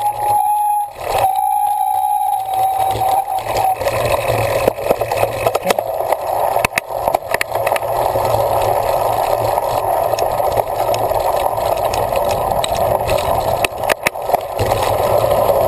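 Cyclocross bike in motion, with a steady rush of wind and riding noise and scattered sharp rattles and knocks from the bike over rough ground. A steady high tone sounds over the first few seconds, with a short break about a second in.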